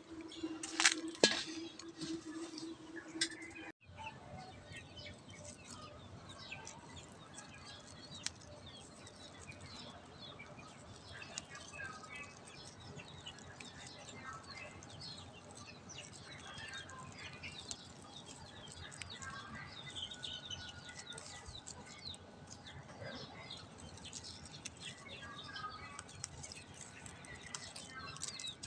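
Small birds chirping on and off over a low background hiss, with a few sharp clatters in the first seconds and a brief dropout about four seconds in.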